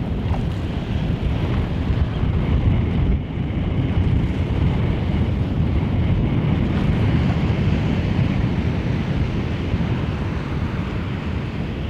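Wind buffeting the microphone in a steady low rumble, over the wash of choppy water.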